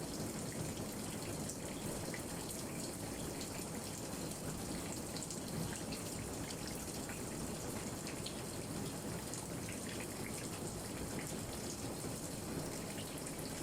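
Steady rain falling on a lilac bush, with many small drop impacts ticking on the wet leaves.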